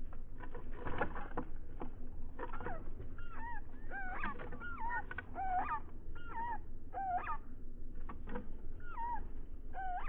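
Short, wavering animal calls repeated about twice a second from about three seconds in, preceded by scattered light taps and knocks.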